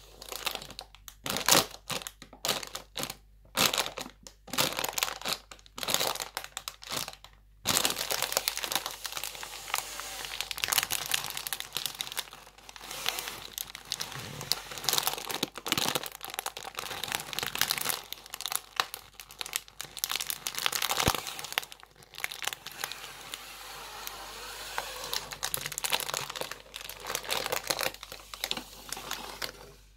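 Leather-gloved hands squeezing and crinkling a plastic crisp packet: a string of separate short presses for the first several seconds, then almost unbroken crinkling.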